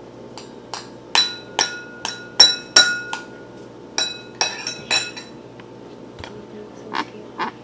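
An egg tapped against the rim of a glass mixing bowl to crack it: about a dozen sharp clinks, each with a brief ring from the glass. They come in quick runs through the first five seconds, then two more near the end.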